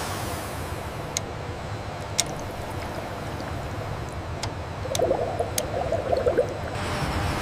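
Steady low industrial hum with five sharp clicks scattered through it. About five seconds in, a rough, scratchy noise lasts for about a second and a half.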